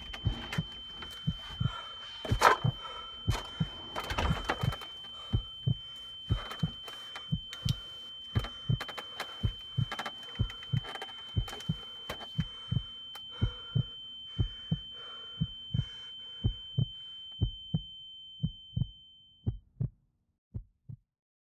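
Heartbeat sound effect: steady low thumps in pairs, with a high-pitched ringing tone held over them. A louder rush of noise comes about two and four seconds in, and near the end the ringing stops while the beats slow and fade.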